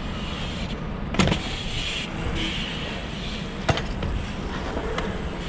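Mountain bike tyres rolling over asphalt while riding, a steady rushing noise with wind on the microphone, broken by two sharp knocks about a second and about three and a half seconds in.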